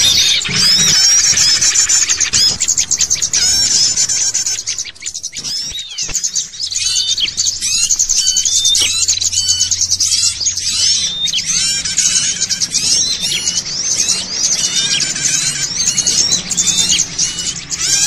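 Bird-lure recording: a noisy, agitated chorus of many small songbirds, rapid overlapping chirps and short whistled calls, high-pitched and unbroken, with a brief thinning about five seconds in.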